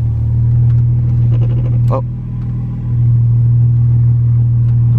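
Mk5 Toyota Supra engine running steadily at low idle, heard from inside the cabin as the car creeps in reverse. It eases off briefly about two seconds in.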